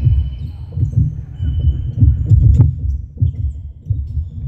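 Sports-hall game noise during a netball match: a dense, irregular low thudding and rumble, with a couple of faint, brief high squeaks in the first half.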